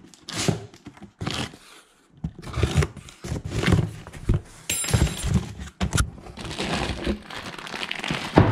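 A parcel holding a new air filter being handled and opened: irregular thuds and knocks with rustling of packaging, a brief high squeak about five seconds in, and a sharp knock near six seconds.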